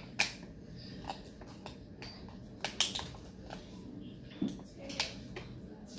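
A plastic water bottle being handled and its cap twisted open, giving scattered sharp clicks and plastic crinkles with a short knock about four and a half seconds in.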